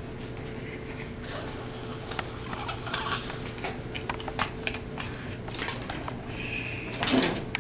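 Scratchy rustling and light clicking as a comb is worked through a toy poodle's coat and the dog squirms against a heavy grooming glove, then a second from the end a short, loud outburst from the dog as it snaps at the glove.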